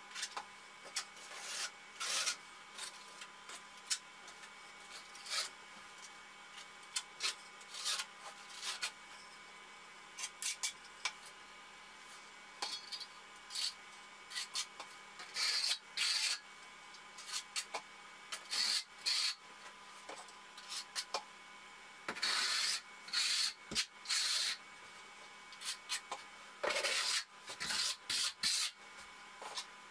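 Steel trowel scraping thin-set mortar out of a plastic bucket and spreading it over cement board seams: short, irregular scraping strokes, some in quick runs.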